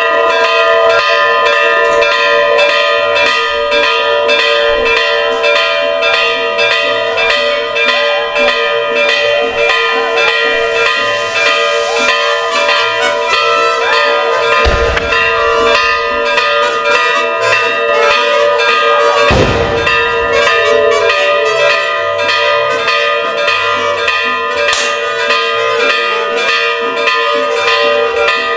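Bells rung continuously in quick, even strokes, their tones ringing on steadily. Two deep booms sound midway, about five seconds apart.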